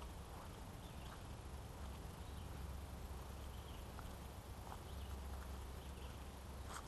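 Faint footsteps on a dirt forest trail, soft irregular scuffs, over a steady low rumble.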